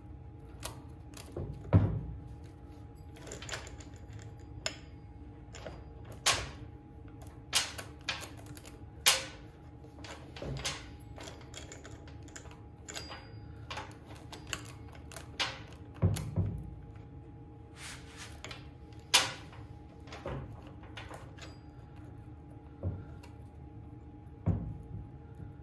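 Saw chain clicking and clinking against the guide bar and drive sprocket as it is worked back onto a Craftsman chainsaw by hand: irregular metallic clicks, with a few duller thunks of the bar and saw shifting on the bench.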